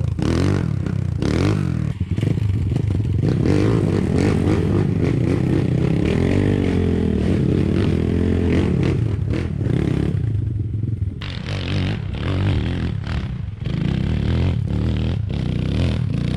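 Off-road dirt bike engines revving up and down under load, the pitch rising and falling, with a brief easing off about ten seconds in and some knocks along the way.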